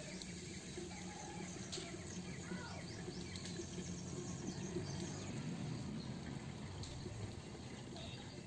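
Outdoor background ambience: a low steady hum with scattered short bird chirps and a few faint ticks.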